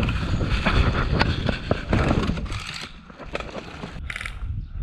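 Wind buffeting the microphone with a rough, uneven rumble, while footsteps crunch over sandy, gritty ground. About four seconds in comes a short burst of rapid clicking.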